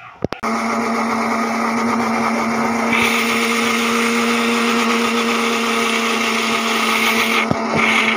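Electric mixer grinder (mixie) running steadily, grinding raw mango, garlic and dried red chillies into chutney in its steel jar. It starts with a couple of clicks just after the beginning, and the sound grows brighter about three seconds in.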